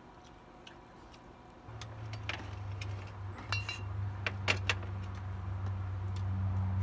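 A glass brandy bottle being lifted off a glass-topped table and its screw cap twisted open, with a string of sharp clinks and clicks. A steady low hum comes in about two seconds in and grows louder.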